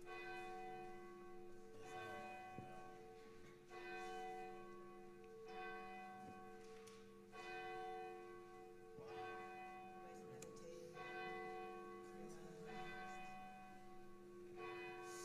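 A single church bell tolling faintly, struck about once every two seconds, with each stroke ringing on into the next.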